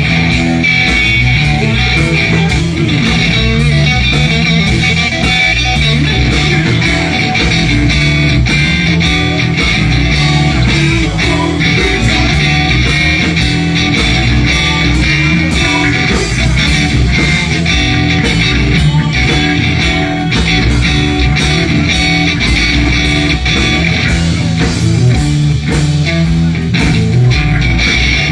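Live blues band playing an instrumental passage without vocals: electric guitar over bass and a steady beat, loud throughout.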